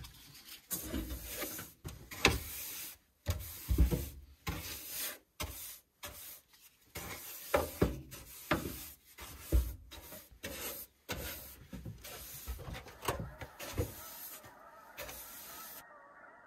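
Hand brush sweeping road dust off a countertop in short, separate scratchy strokes, with a few knocks among them. Near the end it gives way to a faint steady hiss.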